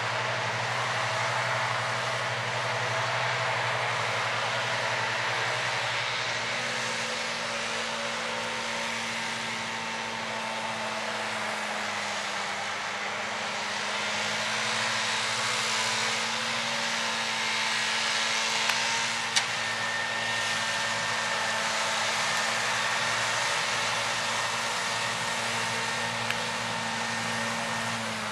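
John Deere 7530 tractor's six-cylinder diesel engine running steadily under load, with its front and rear mowers running and cutting grass.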